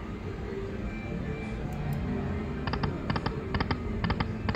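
Lightning Cash High Stakes slot machine spinning, then its five reels stopping one after another about every half second, each stop marked by a short electronic clicking chime. Casino background sound runs underneath.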